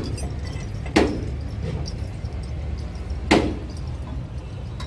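Steady low rumble with two sharp knocks, one about a second in and another about two seconds later.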